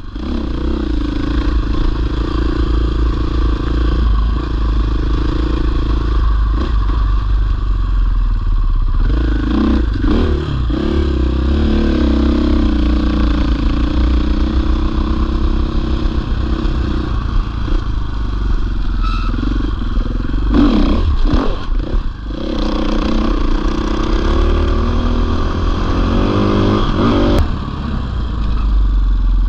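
450cc single-cylinder four-stroke enduro motorcycle ridden off-road, its engine rising and falling with the throttle. There are clattering knocks over bumps at the start, around ten seconds in, and again around twenty seconds in.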